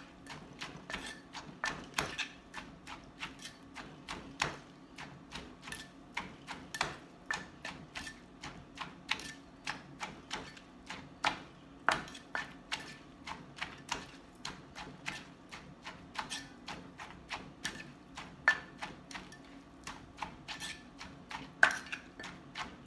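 A pestle pounding in a mortar to bruise and mix green papaya salad: sharp, irregular knocks about two to three a second, with some louder strikes.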